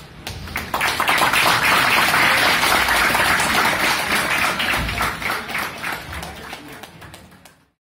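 Audience applause: many people clapping, building up over the first second and dying away gradually near the end.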